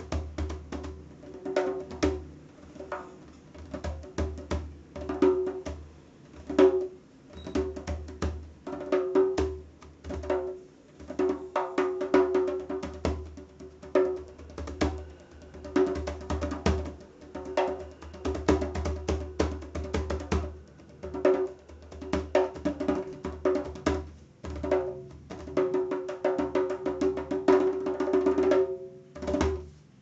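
A Toca djembe played by hand in a continuous rhythm, with deep bass strokes mixed with sharper, higher ringing strokes on the drumhead.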